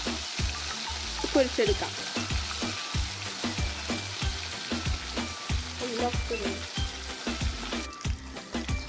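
Marinated chicken pieces sizzling and crackling as they fry in hot oil in a kadai.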